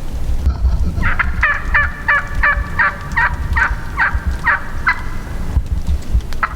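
Wild turkey calling: a series of about eleven evenly spaced notes over roughly four seconds, with a low rumble of wind underneath.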